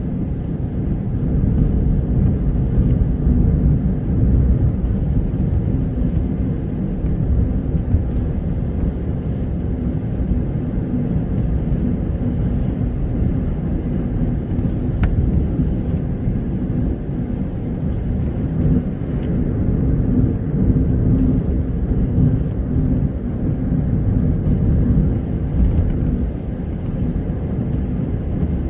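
Car driving on a rain-soaked road: a steady low rumble of engine and tyres on wet tarmac, with a faint even drone underneath.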